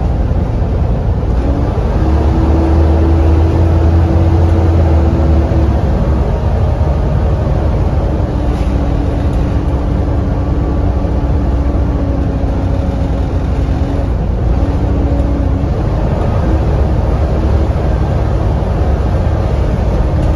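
Volvo B7TL double-decker bus driving, heard from the upper deck: a low engine drone under a steady, hoovery whine. The whine's pitch steps up about a second and a half in, falls back around six seconds, and dips briefly about two-thirds of the way through.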